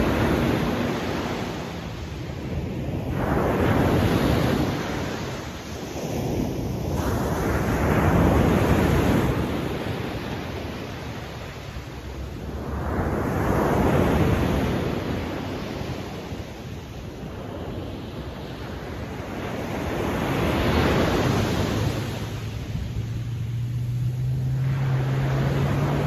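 Ocean waves breaking on a beach. Each wave swells and fades, coming every four to seven seconds.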